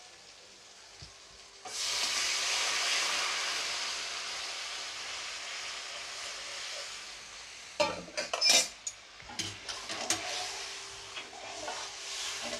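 Hot water poured into a kadai of masala fried in oil, hitting the hot oil with a sudden sizzle about two seconds in that slowly dies down. Later a metal spatula scrapes and knocks against the kadai several times as the gravy is stirred, over a fainter steady sizzle.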